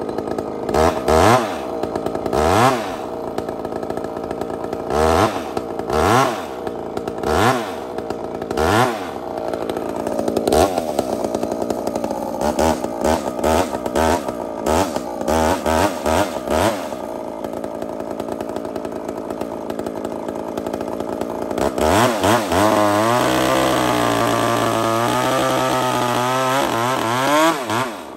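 Big two-stroke chainsaw with a 4-foot bar, blipped up to high revs and back down many times over the first half. Near the end it is held at full throttle for about six seconds, boring into a timber beam, its pitch wavering under the load before it drops back.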